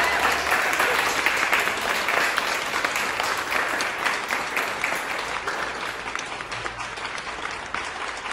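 A small group clapping their hands, the applause slowly dying away.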